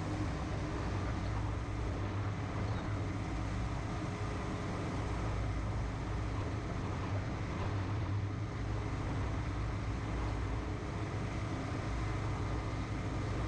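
John Deere 7710 tractor's six-cylinder diesel engine running steadily under load while pulling a hay mower through the field, a constant low drone.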